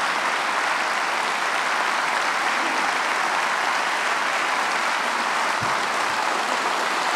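An audience applauding with steady, sustained clapping.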